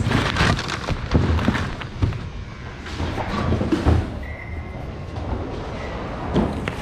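Goods knocking and rustling as hands rummage through a thrift-store bin, in irregular knocks and thuds. A faint steady high tone sounds for about two seconds past the middle.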